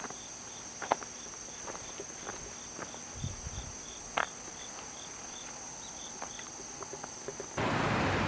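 Insects singing: a steady high-pitched drone with a second insect chirping about five times every two seconds, and a few sharp taps. Near the end the sound cuts to a much louder, even rushing noise.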